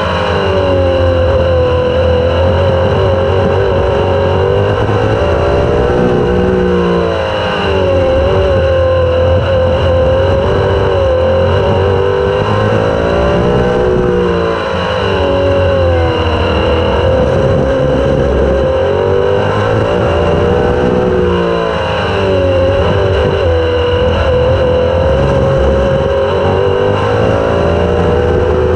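Super sprint race car engine heard from onboard at racing speed, its pitch dropping and climbing back about every seven seconds as the throttle comes off and back on through the turns, over a steady low rumble and wind noise.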